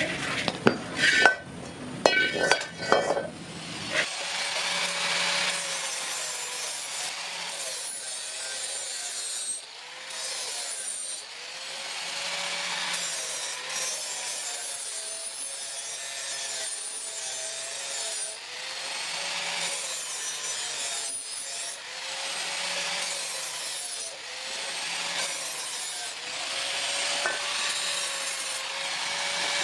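A few sharp metallic knocks, then steady rhythmic scraping or rasping of metal, in strokes about every two seconds.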